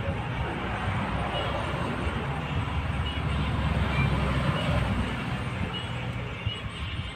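Low, steady rumble of background road traffic, growing louder toward the middle and easing off near the end, with a few faint short high peeps.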